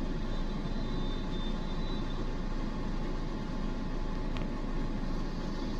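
Steady low rumble of a car's engine and the surrounding street traffic, heard from inside the car as it idles and creeps in slow traffic.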